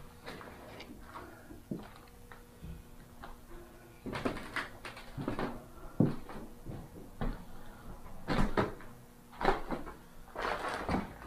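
Irregular wooden knocks and crunching steps on a debris-strewn wooden floor, sparse at first and coming thicker and louder from about four seconds in.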